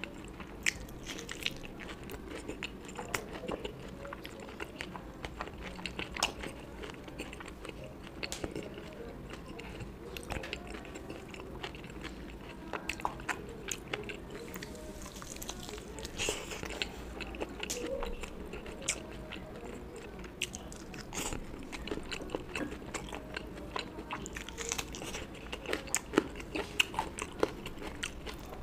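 A person chewing and biting food close to the microphone: wet mouth clicks and small crunches at an irregular pace, with a cluster of sharper clicks near the end.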